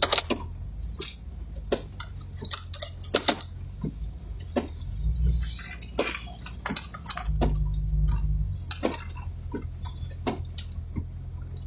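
Vehicle engine running low while turning around, with irregular sharp clicks and rattles throughout. The engine picks up briefly about five seconds in, and again for about a second around seven to eight seconds in.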